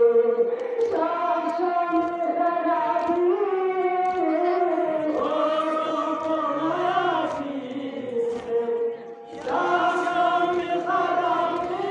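Mourners chanting a lament (noha) in a slow, held melodic line, many voices together, with a short break about nine seconds in before the next line.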